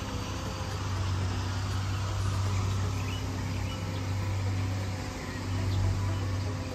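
A motor vehicle running steadily: a low engine hum under a wash of road and wind noise, with a few faint chirps a couple of seconds in.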